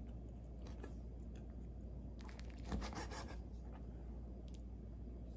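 Faint handling sounds of soft tortilla pinwheel slices and a chef's knife on a plastic cutting board: quiet rubs and light taps, with one slightly louder soft knock near the middle, over a low steady hum.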